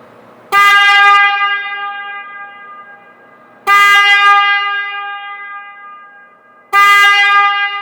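Denali Soundbomb Mini electromagnetic low-tone motorcycle horn sounded three times, each a long steady blast of one pitch that starts suddenly and slowly fades. The horn is really loud, with a deeper tone than a stock horn.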